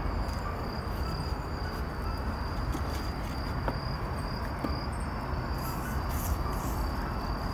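A steady, high-pitched insect trill over a low background rumble, with a couple of faint ticks near the middle.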